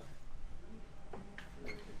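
Quiet room sound in a gap between drum hits, with faint distant voices and a few light clicks.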